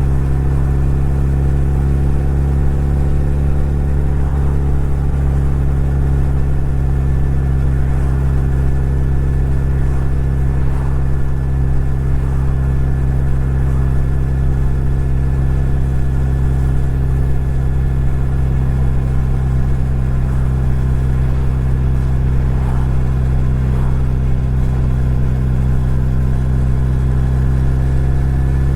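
Suzuki Hayabusa motorcycle engine running at a steady, unchanging speed, a constant low hum with no revving.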